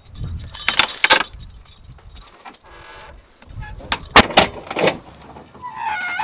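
Keys jangling, with a few sharp knocks and clunks from a car trunk being loaded and its lid shut.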